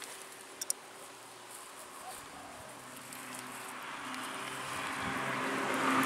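A vehicle engine drawing closer, its sound growing steadily louder, with two short clicks just under a second in.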